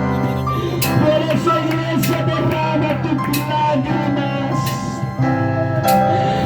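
Music with guitar, a steady bass line and drums, with a cymbal hit every so often.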